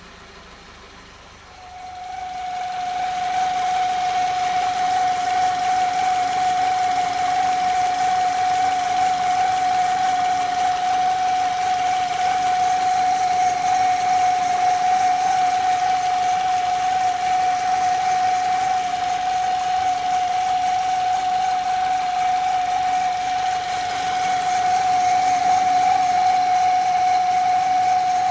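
Mazda 6 (GH) 2.0 engine idling with a steady high whistle from the accessory-belt lower idler pulley and tensioner pulley, the sign of a failing pulley. The whistle and engine noise come in about a second and a half in and then hold steady.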